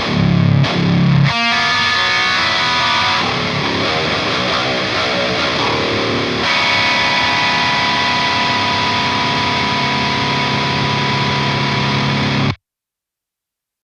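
Heavy metal guitar, distorted through a Diezel VH4 tube amplifier: a few low chugs, then sustained chords left ringing, with a new chord about six seconds in. It cuts off suddenly near the end as the song finishes.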